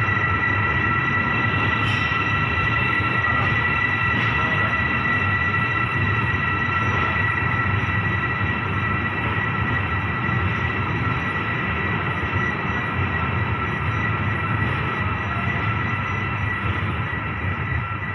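Passenger train rolling slowly through the station, heard from on board: a steady rumble of wheels on rail with a continuous high-pitched squeal from the steel wheels, easing slightly near the end.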